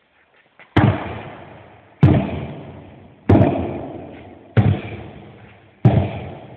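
Sledgehammer striking a tractor tire, five heavy thuds about every 1.3 seconds, each ringing out with a long echo that fades before the next strike.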